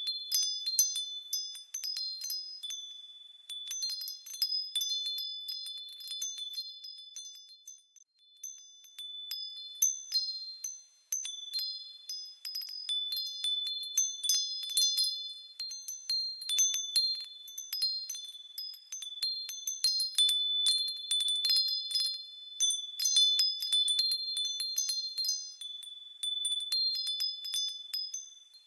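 Wind chimes ringing with many irregular, overlapping strikes of high, crisp tones, with brief lulls about eight and eleven seconds in.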